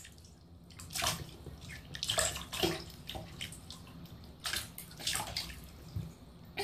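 Bathwater splashing and sloshing in a tub as a baby moves in it: several short splashes, a second or so apart.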